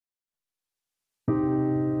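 Silence, then a little over a second in, intro music begins with a held piano chord.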